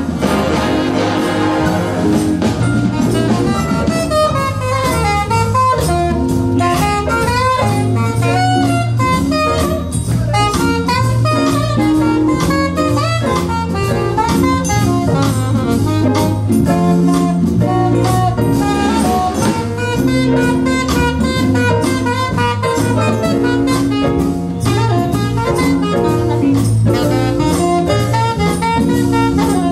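Big band playing jazz live, the saxophone section carrying the melody over brass and a drum kit.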